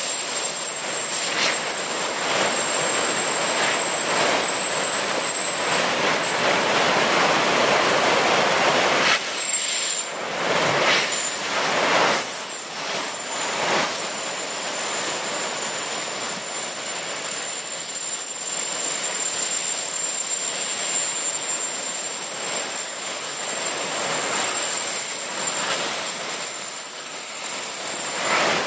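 A leaking gas bottle hissing loudly as it vents, tumbling in the churning flood water below a dam spillway, over the rush of the water. The hiss breaks up briefly a few times around the middle.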